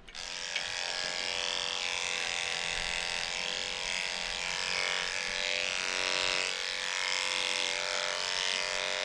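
Corded electric dog-grooming clippers running at a steady buzz.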